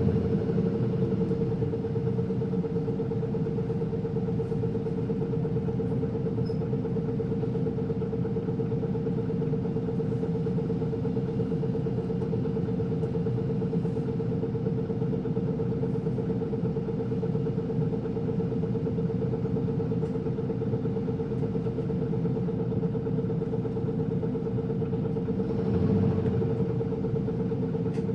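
Isuzu Erga (PKG-LV234L2) city bus's diesel engine running steadily, heard from inside the passenger cabin as a low rumble with one steady tone over it. About two seconds before the end it swells briefly louder.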